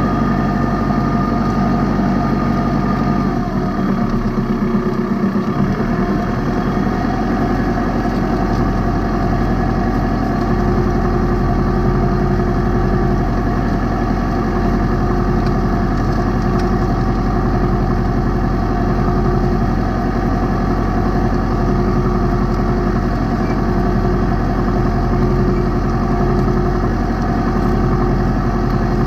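New Holland Boomer 50 compact tractor's diesel engine running steadily under load while pulling a two-row corn planter through the soil. The engine note shifts briefly about three to five seconds in, then settles again.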